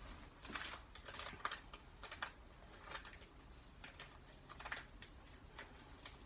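A sealed applicator packet crinkling and tearing as gloved hands work it open: a string of short, irregular crackles.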